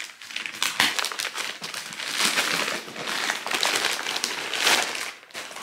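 Plastic courier mailer bag being torn open and crumpled off a cardboard box: a dense run of crinkling and crackling that tails off near the end.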